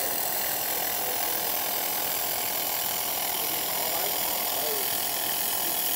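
Handheld 1 kW laser welder laying a weld bead: a steady, even hiss with a faint constant whine under it.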